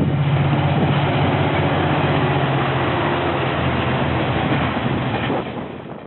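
Diesel-electric locomotives passing close with a train, the engines running steadily under a wash of rolling noise. The sound fades out near the end.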